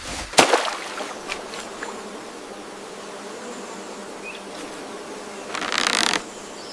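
Insects buzzing in rainforest ambience, with a sharp snap about half a second in and a short hissing rush near the end.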